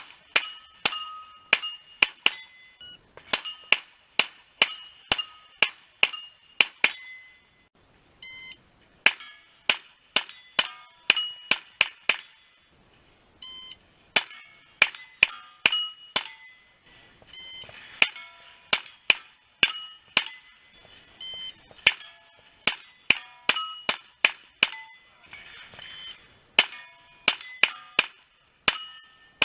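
Pistol-caliber carbine firing fast strings of shots at steel plates, with the plates ringing as they are hit. Between strings, a shot timer's short start beep sounds about four times.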